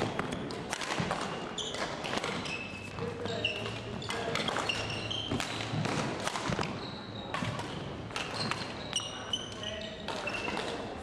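Badminton rally: racket strikes on the shuttlecock and quick footfalls, with short high squeaks of shoes on the wooden court floor.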